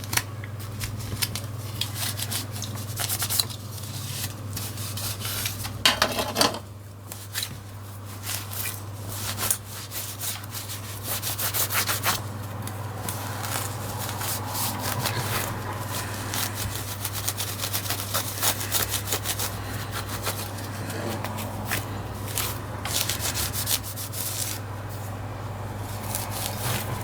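Wiping the inside of a remote control casing to dry off multi-purpose cleaner: a continuous run of scratchy rubbing strokes. A low steady hum runs underneath.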